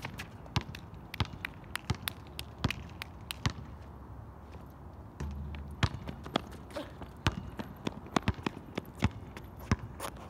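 Basketball bouncing on an outdoor asphalt court: a run of sharp, unevenly spaced bounces as it is dribbled and played, over a low steady hum.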